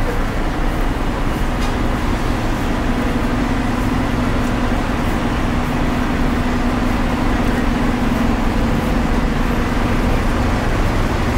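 City buses running at a bus interchange, a steady traffic rumble with a low engine hum that grows stronger a few seconds in.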